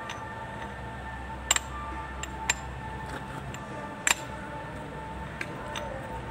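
Steel transmission gears of a Kubota B6001 tractor clinking as they are handled and turned by hand on their shafts, with a few sharp metal clicks, the loudest about a second and a half in and about four seconds in. Faint background music plays throughout.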